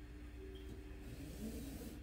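Faint hiss of rope running through a set of pulleys as a Subaru EJ25 engine block is hoisted by hand, over a steady low hum.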